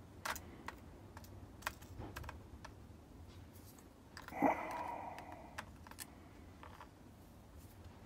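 Faint, scattered light clicks of steel tweezers picking up and setting down a padlock's tiny brass lock pins in a pin tray. A brief hum lasting about a second comes about halfway through and is the loudest moment.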